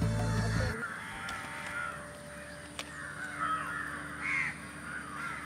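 Crows cawing repeatedly outdoors, with a louder caw about four seconds in and a single sharp click near the middle. Background music stops within the first second.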